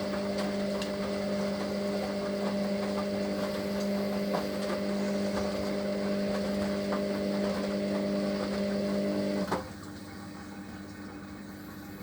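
Hoover HLW585DC washer-dryer's drain pump running with a steady hum, pumping out the wash water before the final spin, then cutting off with a click about three-quarters of the way through, leaving a fainter steady hum of the machine.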